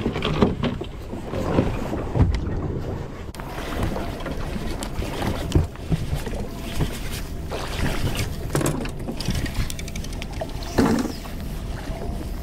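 Wind buffeting the microphone over the steady low rumble of a boat on open water, with a few scattered knocks.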